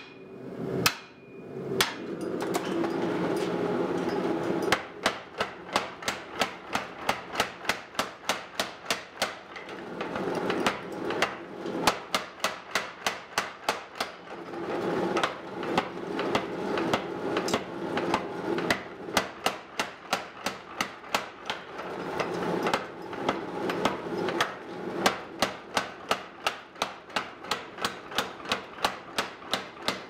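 Hand hammer striking red-hot steel of an axe head in long runs of rapid, even blows, about three a second, with short pauses between runs.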